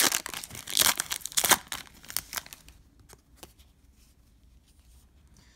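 Foil wrapper of a Panini Prizm trading-card pack being torn open and crinkled by hand for about the first two and a half seconds, then a few faint clicks.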